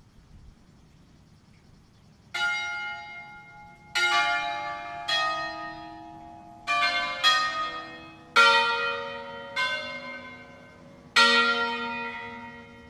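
Church bells of a five-bell ring tuned in B♭, struck one stroke at a time in an uneven melodic sequence of different pitches, each stroke ringing on and fading; this is concert-style ringing on bells held mouth-up between strokes. About nine strokes begin about two seconds in.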